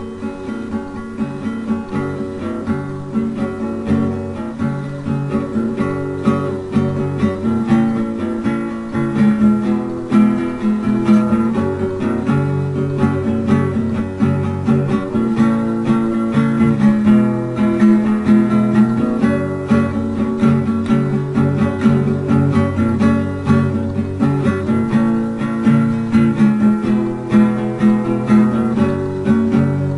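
Acoustic guitar strummed in a steady rhythm, playing a song, growing louder over the first several seconds.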